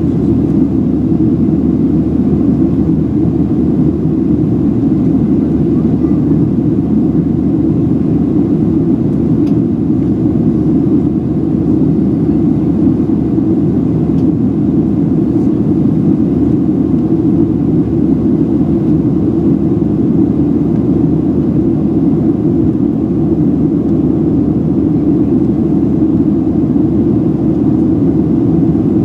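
Steady low rumble of a Boeing 737-700's CFM56 jet engines and airflow, heard from inside the passenger cabin while the airliner climbs after takeoff. Even and unchanging throughout.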